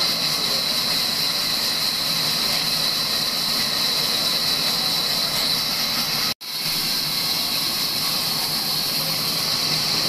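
Large sawmill band saw running: a steady hissing drone with a strong high-pitched band, dropping out for an instant about six seconds in.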